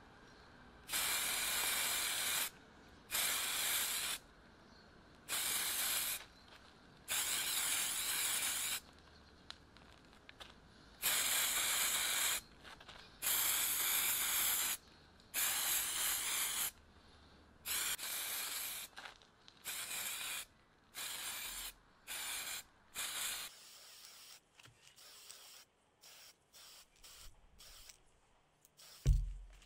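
Aerosol spray-paint can spraying in about a dozen separate bursts of hiss, each a second or two long, the bursts growing shorter in the second half. Near the end comes a single loud, low thump.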